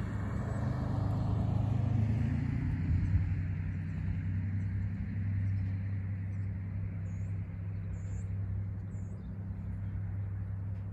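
A car passing with tyre noise that fades over the first few seconds, over a steady low drone from a diesel locomotive approaching in the distance.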